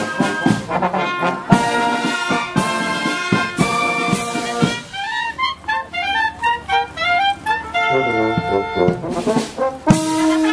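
Marching brass band playing a tune as it walks: trumpets and low brass on held notes, with regular percussion strokes through it.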